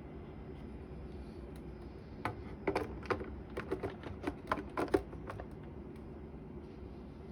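A quick, irregular run of about a dozen sharp clicks or taps lasting a few seconds, over a steady low hum.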